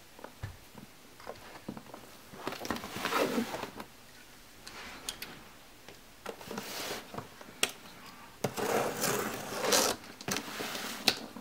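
A large cardboard diaper box being handled: turned over and shifted about on carpet, with scraping rustles and a few sharp knocks.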